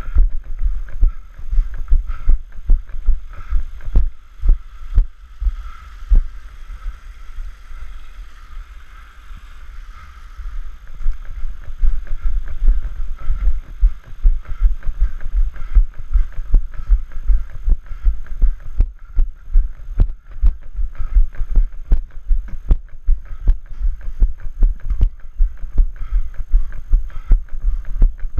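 A runner's footfalls on a trail, heard as a steady rhythm of low thuds, about three a second, with wind on the microphone. The thuds grow quieter and sparser about 4 seconds in and pick up again about 11 seconds in.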